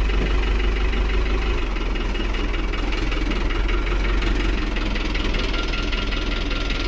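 Excavator's diesel engine running steadily, a low, even rumble with a wavering hum.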